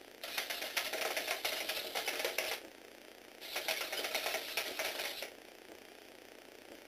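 Lego Technic robot dog walking: its small motor, taken from a Tomy Aero Spider, drives the plastic gear train and legs with a dense, rapid clatter. It runs twice, for about two seconds each time, with a short pause between.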